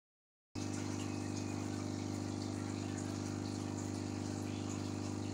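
Aquarium aeration running: a steady hum with water bubbling from the air stone, cutting in abruptly about half a second in.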